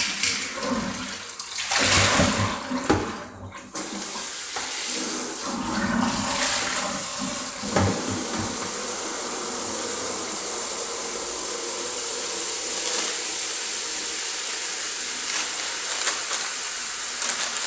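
Tap water running into a basin as crab claw greens are washed. It splashes unevenly for the first few seconds, then settles into a steady rush of running water.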